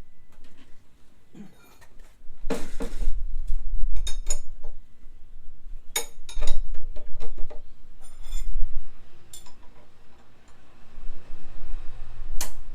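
Metal hand tools and parts clinking and knocking in scattered, irregular strikes, with a brief scraping rustle about two and a half seconds in and a sharp clink near the end.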